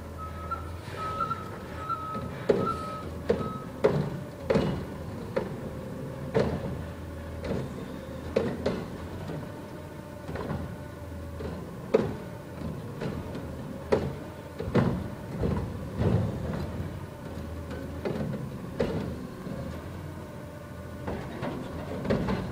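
Front-loader garbage truck's diesel engine running, its reversing beeper sounding for the first few seconds. Irregular knocks and clunks sound every second or so.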